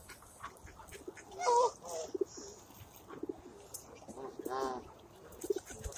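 Birds in a feeding flock of Canada geese and pigeons giving a few short, soft calls, about one and a half and four and a half seconds in, with light clicks between them.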